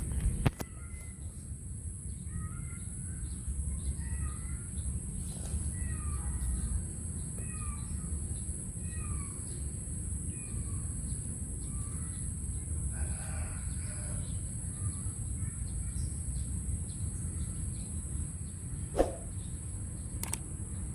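A bird calling in short, curved chirps, repeated every half second or so for about the first ten seconds, over a steady high hiss and a low rumble. A single sharp knock comes near the end.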